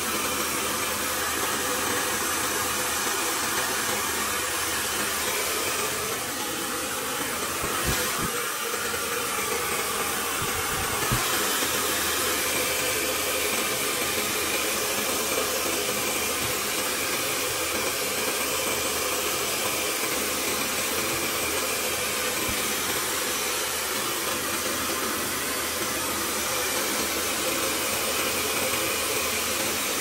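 Handheld hair dryer running steadily, blowing hot air onto built-up ice inside a refrigerator to defrost it. A couple of brief knocks come about eight and eleven seconds in.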